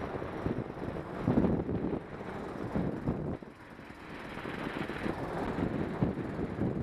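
Dirt bike engine running as the bike is ridden slowly, heard through gusty wind buffeting on a helmet-mounted microphone, loudest a little over a second in.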